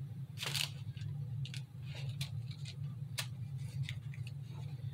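Scattered faint clicks and rustles of hands handling small craft decorations and pressing them into a fake cake, over a steady low hum.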